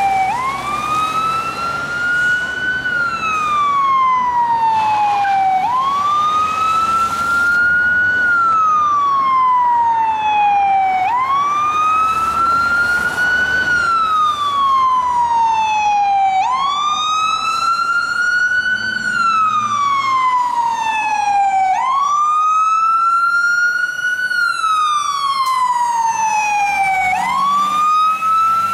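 Spartan/Smeal fire engine's siren on a slow wail: each cycle rises quickly and falls slowly, repeating about every five and a half seconds as the engine approaches, over traffic noise.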